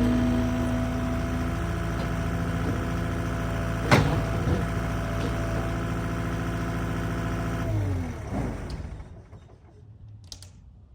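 Skid steer engine running steadily, with one sharp metallic knock about four seconds in, then shut off: its pitch sinks and it winds down to a stop about eight to nine seconds in, leaving only a few faint clicks.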